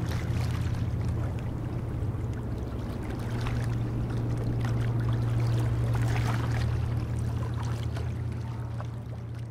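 A boat's engine drones low and steady, with water splashing and lapping, and fades gradually over the last couple of seconds.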